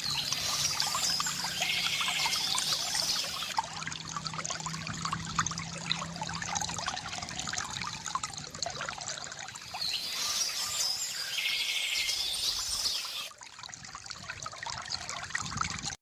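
Water pouring and trickling steadily from a bamboo fountain. A bird sings a phrase of high chirps ending in a fast trill twice, near the start and again about ten seconds in.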